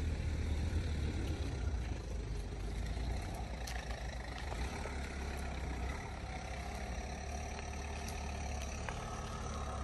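A vehicle engine running steadily, a low even rumble.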